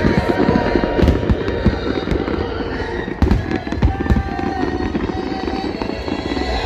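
Fireworks going off in a rapid run of bangs and crackles, with music playing underneath.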